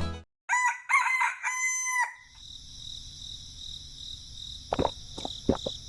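A rooster crowing once: a cock-a-doodle-doo of a few short notes ending in a longer held note. It is followed by a steady high hiss with a few sharp clicks near the end.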